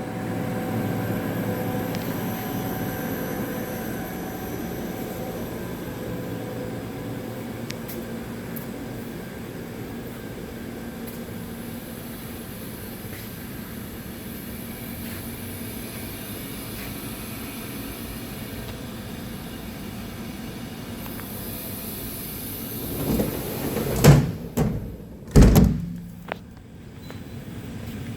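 CNC vertical machining center running with a steady hum made of several fixed tones. Near the end come a few loud clunks and knocks.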